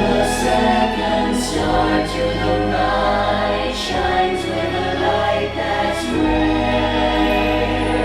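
Choral music: voices singing held notes over a deep sustained bass line.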